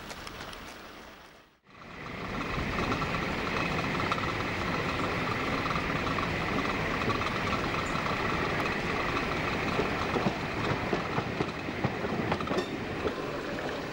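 First-generation diesel multiple unit running, heard from an open window as it rounds a curve: a steady running noise with a high ringing tone over it, and from about ten seconds in, regular clicks of the wheels over rail joints. A short fade to silence near the start.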